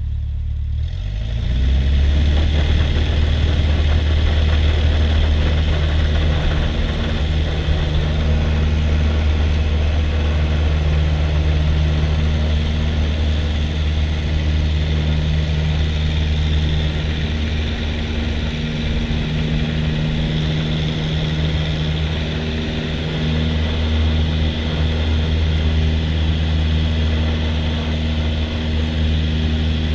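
Cessna 172's piston engine and propeller heard from inside the cabin, coming up to full takeoff power about a second in, then running loud and steady through the takeoff roll and liftoff.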